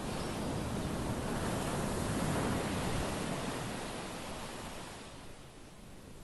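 Small sea waves breaking and washing up a pebble beach, the rush of surf swelling to a peak a couple of seconds in and then fading away.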